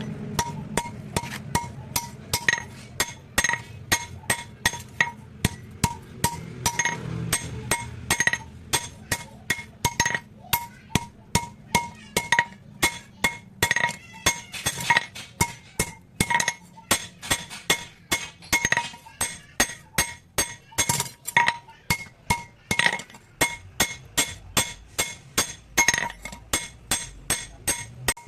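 Hammer blows on metal at an anvil in a steady rhythm, about three strikes a second, each with a bright ring: a blacksmith hammering out a sickle (hasua) blade.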